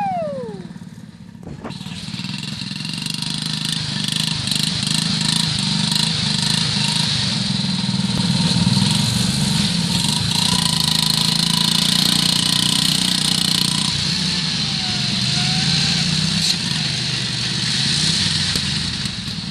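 Riding lawn mower engines running steadily as lifted mowers on mud tyres are driven through mud, with a brief drop in loudness about a second in.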